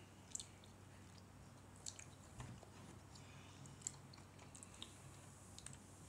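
Faint, close-up chewing of a pizza-shaped sweet: soft wet mouth clicks and smacks at irregular moments, a few seconds apart.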